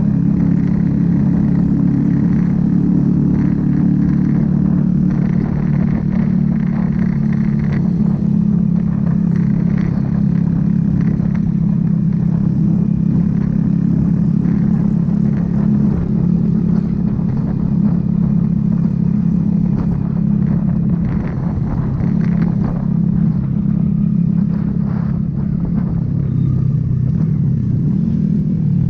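Motorcycle engine running steadily under the rider at cruising speed. Its note drops a little near the end as the bike slows.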